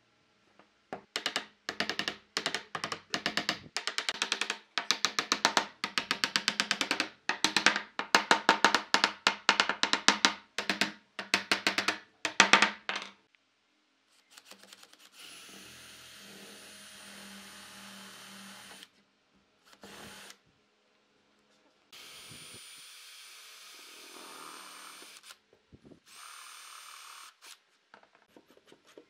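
A fast series of sharp knocks on wood for about twelve seconds. Then a cordless drill drives screws into pine in four short runs, each a steady motor whine with a pause between.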